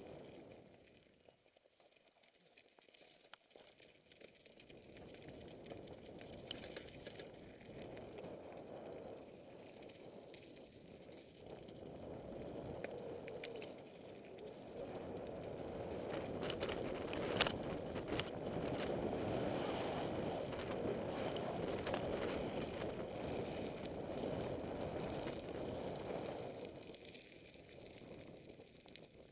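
Downhill mountain bike tyres rolling and crunching over loose slate and stone, with the bike rattling. It grows louder through the middle, with a cluster of sharp clicks about two thirds of the way in, then eases off near the end.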